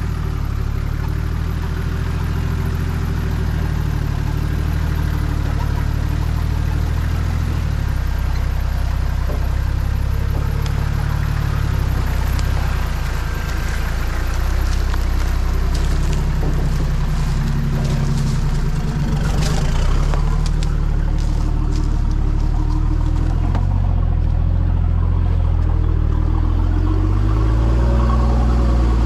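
A four-wheel drive's diesel engine running at changing revs as it drives along, with rattling and knocking from the vehicle through the middle stretch.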